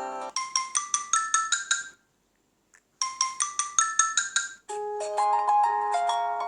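Samsung Galaxy Tab Active ringtones playing. A short phrase of about eight quick, bright, chime-like notes plays twice with about a second of silence between, then a different marimba-like ringtone melody starts near the end.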